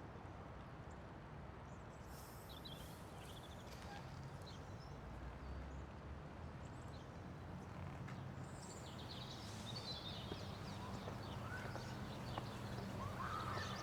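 Faint outdoor ambience: a steady low background with scattered bird chirps, which come more often in the second half.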